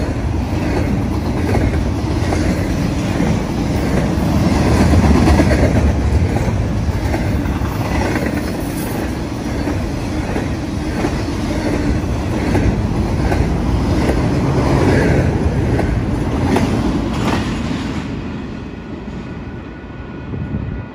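Double-stack intermodal freight train rolling past at close range: steel wheels clacking over the rail joints in a steady clickety-clack over a dense rumble, with the train's two rear distributed-power diesel locomotives going by midway. The sound fades near the end as the last cars pass.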